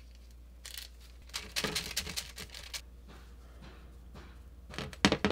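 Soft brush swishing over gold leaf as it is dabbed onto a metal part, a series of short rustling strokes. A louder knock and rustle near the end.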